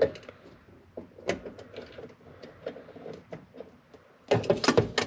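Scattered small clicks and knocks of hands and parts being handled at a car's gas pedal and throttle cable under the dashboard. Near the end comes a louder, busier burst of clattering and rustling.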